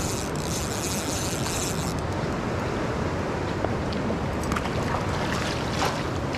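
Steady rushing noise of wind on the microphone over moving stream water; a bright hiss on top drops away about two seconds in, and a few light ticks follow near the end.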